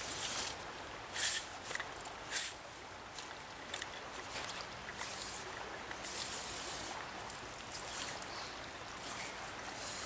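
River water running steadily over a shallow riffle, with several brief high-pitched swishes and rustles over it, the loudest of them near the start.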